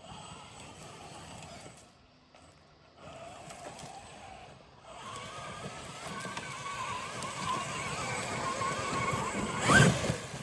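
Traxxas X-Maxx RC truck's brushless electric motor and drivetrain whining as it drives. The whine wavers in pitch and grows louder from about halfway through, then gives a short, loud rising whine near the end as the throttle is punched.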